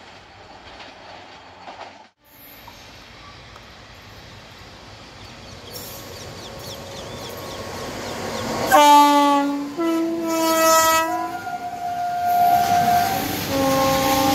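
Electric locomotive's horn sounding a series of blasts that alternate between pitches, over the growing rumble and wheel noise of the approaching train. The blasts start about nine seconds in, and the train rolls past close by near the end.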